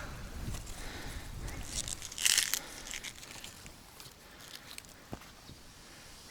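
Dense waterside vegetation rustling and crunching as someone pushes through it, with one loud rustle about two seconds in and scattered crackles after.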